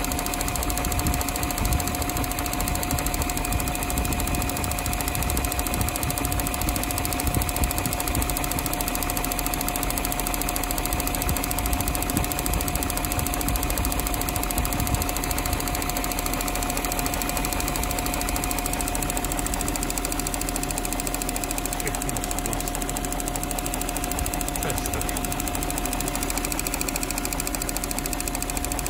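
BMW 740i E38's 4.4-litre V8 running steadily at idle, a low even rumble with a thin steady tone running through it.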